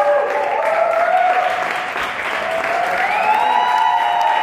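Audience applauding, with drawn-out cheering shouts over the clapping.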